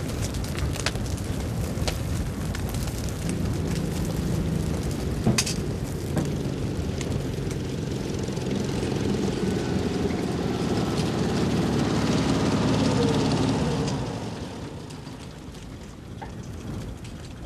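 Burning wreckage of a crashed plane crackling, with sharp pops. Under it, a motor-vehicle engine drone builds up and then dies away about fourteen seconds in.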